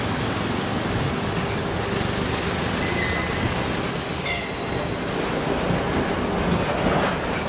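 EG2Tv 'Ivolga 1.0' DC electric multiple unit approaching on a curved track: a steady rumble of wheels on rails, with a few short high-pitched wheel squeals about three and four seconds in.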